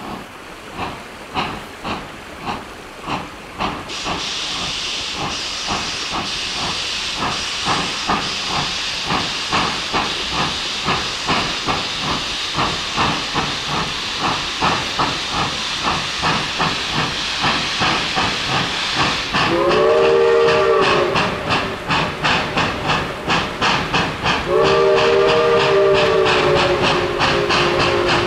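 Steam locomotive working along the line: even exhaust chuffs, about two a second, with a loud hiss of steam from a few seconds in to about two-thirds of the way through. Then its multi-chime steam whistle sounds a short blast and, a few seconds later, a long blast still sounding at the end.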